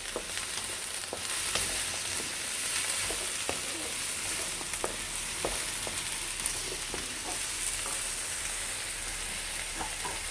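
Chopped onion, ginger, garlic, galangal, green chillies and lemongrass frying in a little oil, a steady sizzle, with a few light knocks as they are stirred in the pan.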